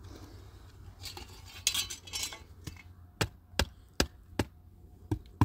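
A brief rustling scrape a little over a second in, then a run of sharp knocks from about three seconds in, roughly two or three a second.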